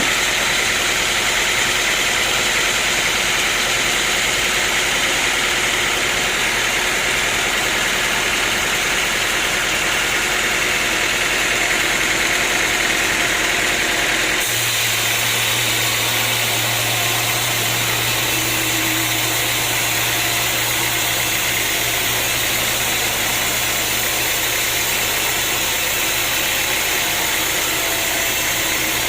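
Sawmill machinery running with a steady engine-like drone. The sound changes abruptly about halfway through, when a low hum comes in.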